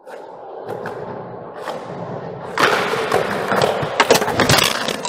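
Skateboard wheels rolling on concrete, growing louder as the board approaches, then from about two and a half seconds in a loud stretch of clacks and thuds from the board hitting the ground and curb, loudest about four seconds in.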